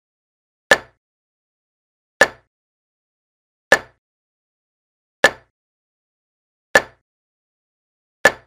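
Chess board program's move sound effect: a sharp click each time a piece is placed, six times at an even pace of about one every second and a half.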